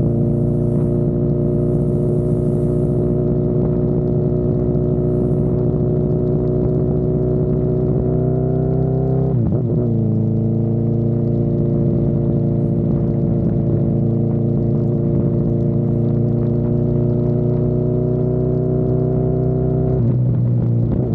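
Honda CB1000R's inline-four engine under way, the pitch climbing slowly as the bike gathers speed. The note breaks briefly about nine seconds in, as at a gear change, then carries on climbing, and falls away near the end.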